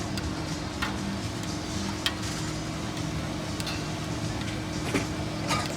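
About five scattered sharp clicks and knocks over a steady low hum.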